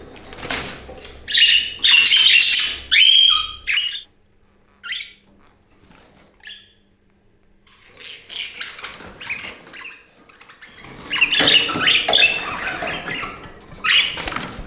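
Budgerigars chattering and squawking in loud bursts of quick, high calls, with a quieter stretch in the middle broken by a few single chirps.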